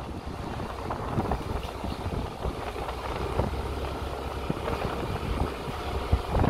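Motorcycle running steadily along a road, its engine and road rumble heard from on board the bike.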